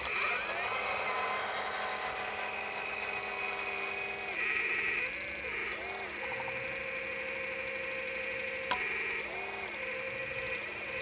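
Hydraulic pump and valves of an RC4WD Earth Digger 4200XL 1/12-scale hydraulic excavator whining steadily, the pitch dipping and rising in short arcs as the boom, arm and bucket are worked. A single sharp click comes about nine seconds in.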